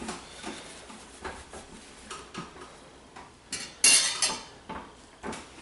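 Small clinks and scrapes of a fork and fingers on a dinner plate as a roast chicken is picked apart, with a louder burst of clatter about four seconds in.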